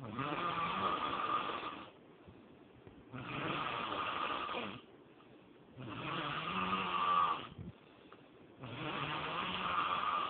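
A person snoring: four snores of about a second and a half each, one roughly every three seconds, with quiet breathing gaps between them.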